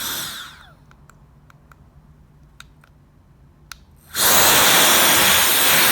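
The CCV F31 electric air duster's fan whines down and stops, several small clicks follow in the quiet as its buttons are pressed, and about four seconds in it starts blowing on its highest setting with a loud, steady rush of air.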